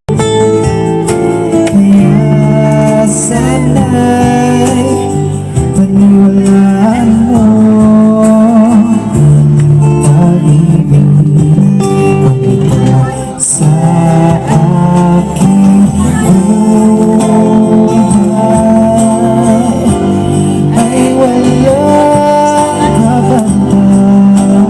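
Background music: a song with singing over strummed guitar, starting suddenly.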